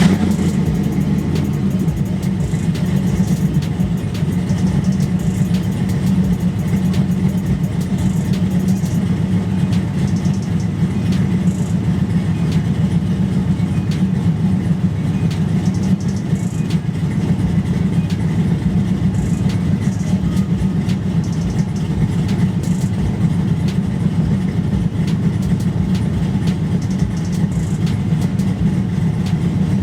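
Oldsmobile Cutlass G-body's V8 running steadily at idle just after being started, as it is moved to turn it around.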